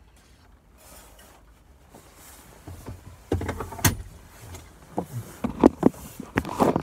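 Handling noises in a car cabin: quiet at first, then from about three seconds in a run of knocks, clicks and rubbing as a plastic water bottle is put away and the phone that is recording is grabbed. One sharp click comes near the four-second mark, and the knocks grow louder and come closer together toward the end.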